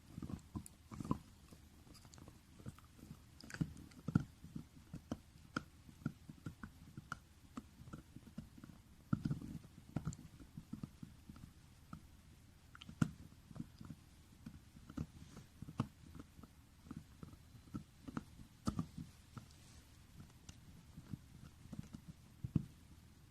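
French bulldog gnawing on a marrow-bone dental chew toy: a run of irregular crunching bites and tooth clicks, one or two a second.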